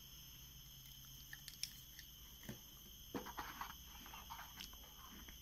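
Faint handling noise: a few soft taps and rustles of hands on a router and its moulded paper-pulp packaging tray, set against a faint steady hiss.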